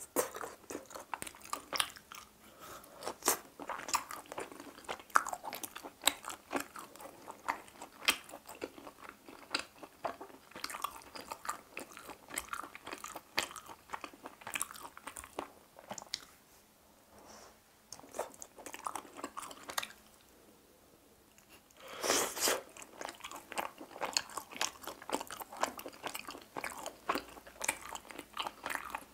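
Close-miked chewing and biting of chicken heart skewers: a steady run of small clicks and crunches from the mouth, with two short lulls and a louder stretch a little over two-thirds of the way through.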